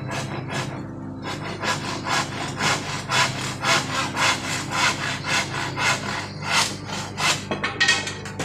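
Large hand saw cutting through a wooden picture-frame moulding, back-and-forth strokes at about two to three a second, starting about a second in and stopping near the end.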